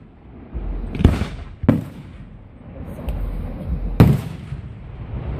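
Aerial fireworks bursting close overhead: three sharp bangs, about a second in, just under two seconds in and about four seconds in, with a weaker pop between them and a low rumble in the gaps.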